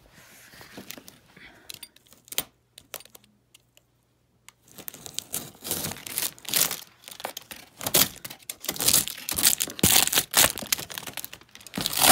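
A utility knife slicing and tearing through plastic stretch wrap and packing tape on a cardboard box, the film crinkling as it is pulled. The first few seconds hold only a few scattered clicks and rustles; from about five seconds in the cutting and tearing run on densely.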